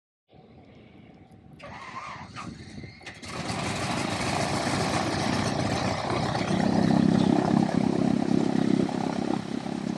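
Stearman's Continental W670 seven-cylinder radial engine starting: it turns over for a few seconds, catches about three seconds in, and then runs steadily and loudly.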